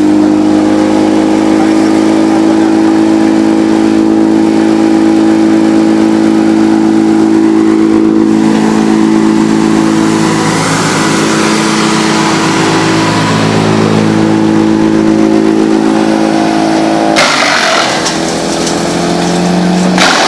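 Wood chipper driven by a 35 hp Briggs & Stratton Vanguard V-twin, running steadily at speed. Near the end the steady engine note drops and two short noisy bursts come as a log is fed into the hopper.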